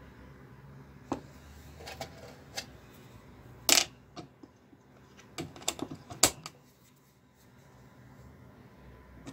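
Irregular sharp clicks and taps of a screwdriver knocking against a computer motherboard and its parts, with the loudest taps about four seconds in and again about six seconds in.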